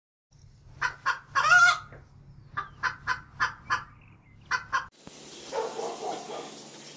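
Chicken clucking: a quick series of short notes, about four a second at times, with one longer call about a second and a half in. About five seconds in, the clucking stops and a steady noise takes over.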